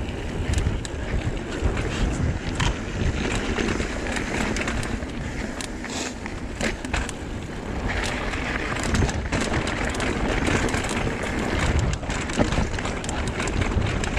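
Trek Fuel EX 7 mountain bike riding downhill over rough singletrack: tyres running over dirt and rock, with frequent sharp rattles and knocks from the bike over bumps, and wind buffeting the microphone.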